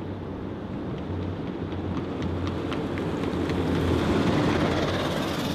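Wheeled armoured personnel carrier's engine running as it drives past, growing louder to a peak about four seconds in and then easing off, over a steady low hum.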